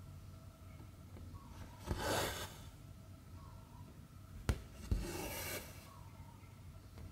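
Cross-stitch thread drawn through 11-count stamped cross-stitch fabric, two rasping swishes about three seconds apart, each lasting about half a second. A sharp tick comes just before the second pull.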